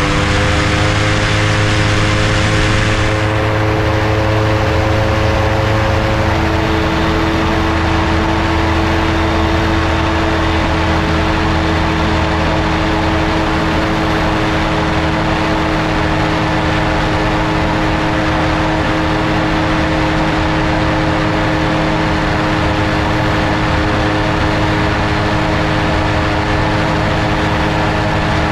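Airtime Cygnet ultralight trike's pusher engine and propeller pulling hard on takeoff and climb-out: a loud, steady drone whose pitch rises slightly at first and then holds. A harsher hiss and low rumble fall away about three seconds in.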